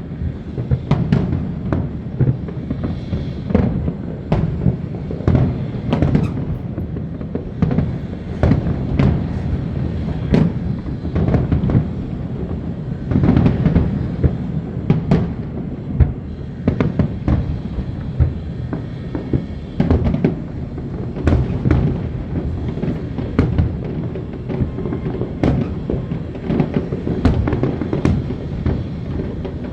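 Aerial fireworks display going off: a dense run of bangs and booms, several a second, over a continuous low rumble.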